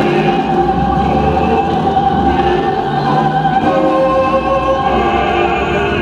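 Experimental electronic music played live from a laptop: several held tones stacked into a drone over a low rumble, with the chord changing about halfway through.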